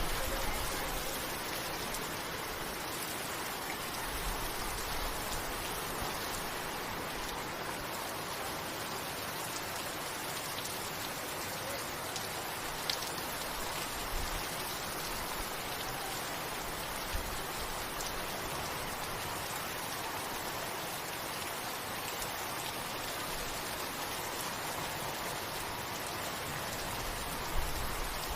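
Steady rain falling, an even hiss with a few separate louder drops.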